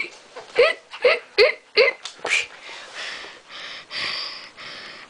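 Small Shih Tzu-type dog playing with a plush toy: four quick high yips, a fifth a moment later, then rhythmic breathy huffing, about two breaths a second.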